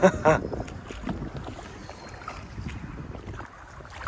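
Wind rumbling on the microphone over faint water sounds from a canoe being paddled. A brief bit of voice comes right at the start.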